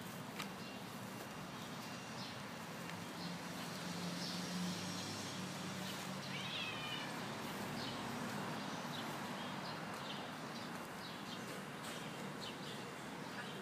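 A cat meows once, a short call about six and a half seconds in, over a steady outdoor background hiss with faint high chirps.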